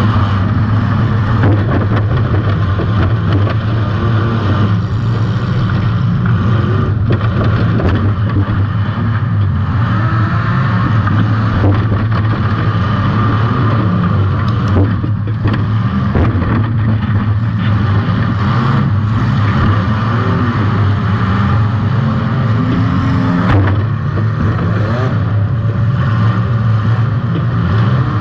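Compact demolition-derby car's engine running hard with changes in revs, with occasional knocks of car-to-car hits.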